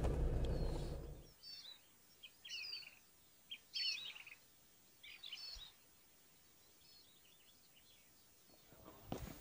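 Songbirds singing in short chirping phrases over a quiet riverside, after a vehicle's low running noise, heard from inside the cab, cuts off about a second in. A few knocks come near the end.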